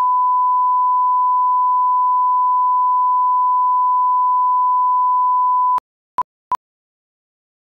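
A steady, pure electronic beep tone held for nearly six seconds and then cut off abruptly, followed by two short beeps of the same pitch and then two more quick ones near the end, with dead silence between them.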